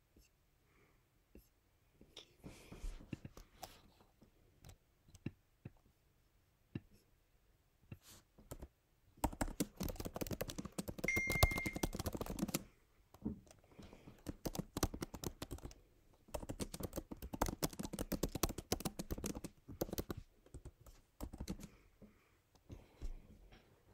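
Typing on a computer keyboard: two runs of rapid key clicks, each a few seconds long, with scattered single taps between them.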